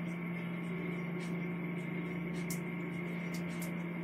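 Steady electrical hum with a fainter high tone over it, and a few faint, brief hisses.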